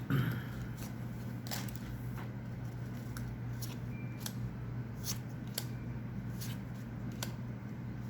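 Pokémon trading cards being handled and slid one behind another, with light scattered clicks and snaps of card stock, over a low steady hum.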